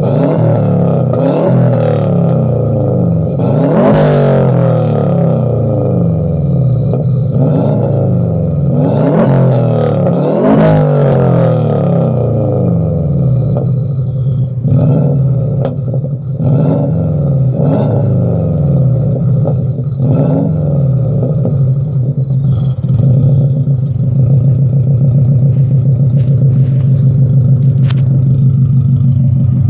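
Subaru Impreza WRX's turbocharged flat-four heard at the tailpipe, idling and being blipped several times in the first half, with high whistles falling in pitch after some of the blips, then running at a steady drone.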